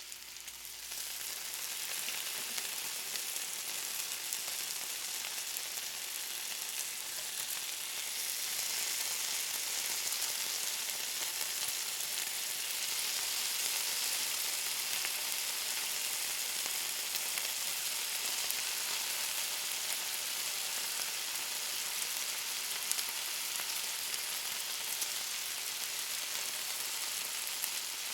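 Bacon frying: a steady sizzling hiss with small scattered pops and crackles. It swells about a second in and again a few seconds later, then holds steady.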